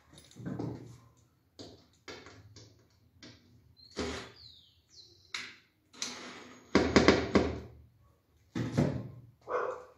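Irregular short knocks, scrapes and brief tool noises from fitting a knob to an MDF cabinet door with a cordless drill; the loudest burst comes about seven seconds in.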